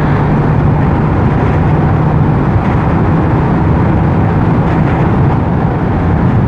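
Honda RS150R's single-cylinder four-stroke engine running steadily while the motorcycle cruises, mixed with a steady rush of wind and road noise.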